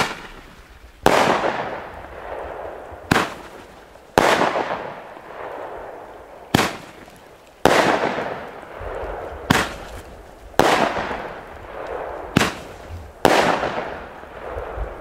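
Hammer-Salut roman candle (Bombenrohr) firing five shots: each a sharp launch crack, then about a second later a bang in the air with a long fading tail. The reports are not especially loud.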